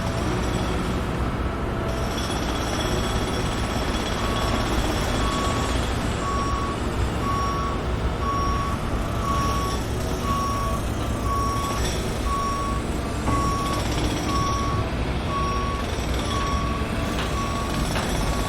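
Backup alarm on a heavy construction vehicle beeping about once a second, starting about four seconds in, over the steady low rumble of a diesel engine. The vehicle is reversing.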